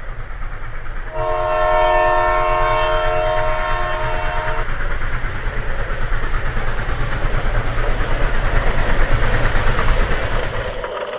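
A train horn sounds a held chord for about three and a half seconds, starting about a second in, over a low rumble. A fast clickety-clack of train wheels follows, growing louder and then easing off near the end.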